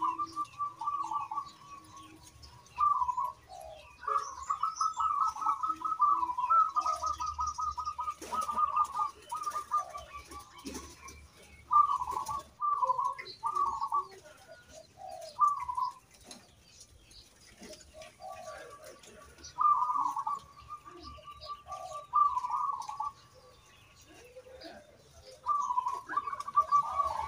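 Zebra dove (perkutut) cooing. It repeats phrases of quick, staccato coo notes, all at about the same pitch, with short pauses between phrases.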